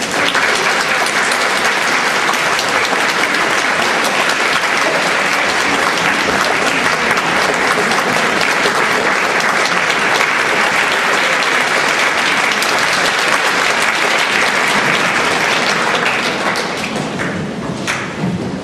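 Audience applauding, a dense steady clapping that thins out over the last couple of seconds to a few scattered claps.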